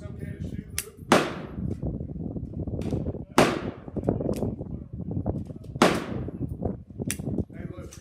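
Uberti 1873 Cattleman single-action revolver firing .45 Colt cowboy loads: three shots about two and a half seconds apart, each with a short ringing echo. Fainter sharp clicks fall between the shots.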